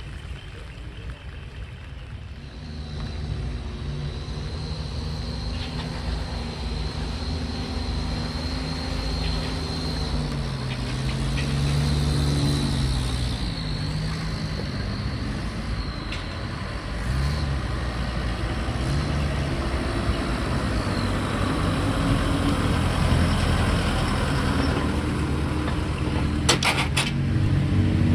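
Heavy decorated trucks' diesel engines running, their pitch rising and falling as they rev and move, with a steady high whine for several seconds early on and a few sharp clicks near the end.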